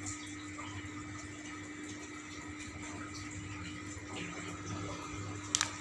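Aquarium filter pump running: a steady low hum with water trickling. A single sharp click near the end.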